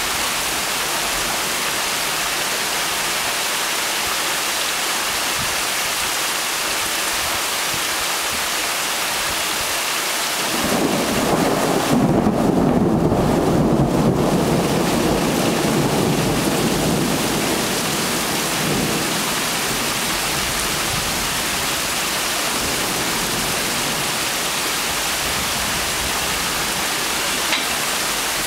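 Heavy rain falling steadily. About ten seconds in, a long rumble of thunder builds, peaks and dies away over some eight seconds.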